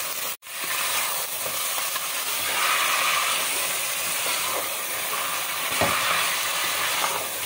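Chicken pieces sizzling in hot ghee in a pot while they are stirred and turned with a wooden spoon, with a steady frying hiss and a couple of soft knocks near the end.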